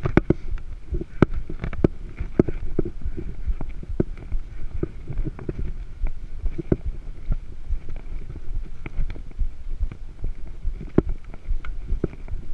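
Mountain bike rolling along an asphalt road, heard from a handlebar-mounted camera: a steady low rumble of road and wind on the microphone with frequent irregular clicks and rattles from the bike and its handlebar mount.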